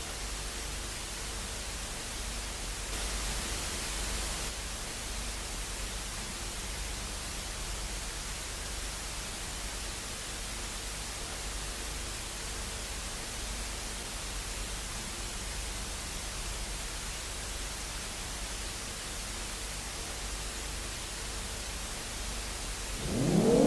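Steady static hiss, briefly a little louder about three seconds in. Near the end a civil defence siren starts to wind up, rising in pitch.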